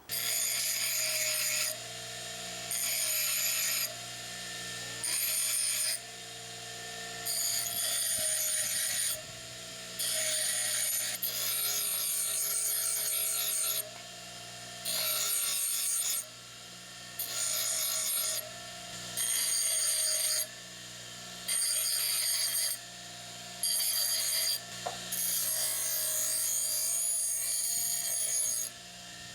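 Power grinder running steadily while split halves of half-inch steel rebar are ground smooth, in about a dozen short, high-pitched grinding passes of a second or so each, roughly every two seconds, with the motor humming between them.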